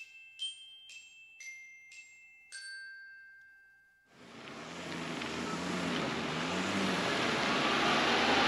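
Intro jingle of struck, bell-like chime notes, about five ringing one after another, the last fading out about four seconds in. Then a steady rush of wind on the microphone starts suddenly and grows louder.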